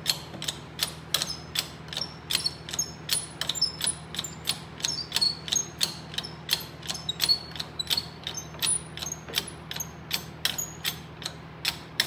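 Ratchet mechanism clicking steadily, about three clicks a second, each click with a short high ring, as it is cranked to load a soldered twist splice toward breaking in a pull test.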